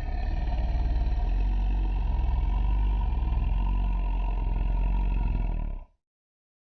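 Zilla Junior monster sound effect: a deep, steady rumble, heaviest in the very low bass, that cuts off abruptly about six seconds in.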